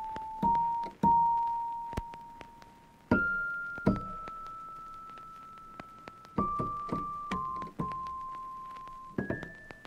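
Background music: a slow piano melody, single high notes struck one at a time and left to ring and fade.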